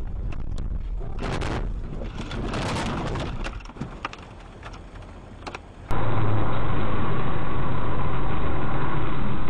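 Car engine and road noise picked up by a dashboard camera inside a moving car, with scattered sharp clicks and knocks. About six seconds in it cuts abruptly to a louder, steady, muffled engine drone from another dashcam clip.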